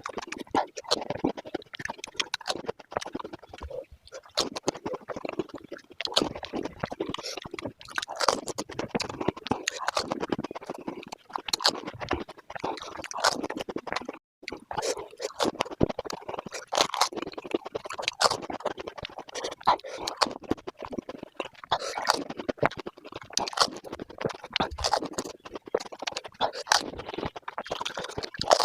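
Mukbang eating sounds played at five times speed: rapid crunching and chewing of crisp panipuri shells, dense clicks packed close together, with a brief break about fourteen seconds in.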